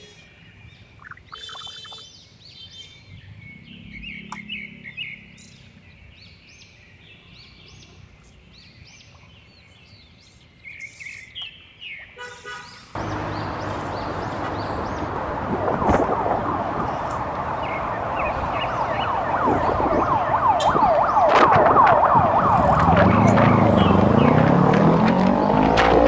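Street riding noise from a motor scooter ride in city traffic: a quiet stretch with faint scattered chirps, then a loud rush of engine, wind and traffic noise that cuts in suddenly about halfway through and grows louder toward the end.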